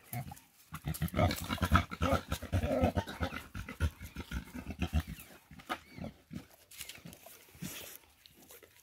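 Pigs grunting in a quick run of short, rough grunts, densest and loudest during the first half, then thinning to scattered grunts.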